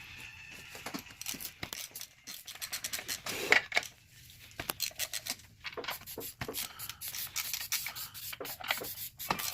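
Irregular rubbing and scrubbing strokes: a rag being worked over grimy engine-bay parts with degreaser.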